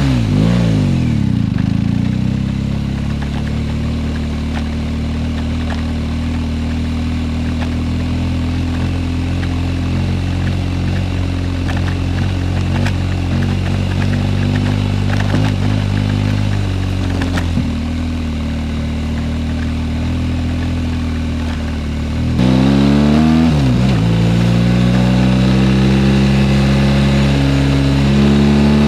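BMW R1250GS boxer-twin engine, a brief rev falling away at the start, then running at low, steady revs while the bike rolls slowly. About 22 seconds in it gets louder as the bike accelerates, its pitch rising and dropping through a gear change, then holding a steadier higher note and rising again near the end.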